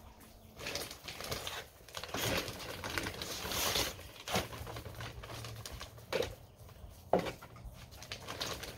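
Rustling and scraping as a bag of potting soil is handled and dirt is moved, in irregular bursts, with three sharp knocks in the second half.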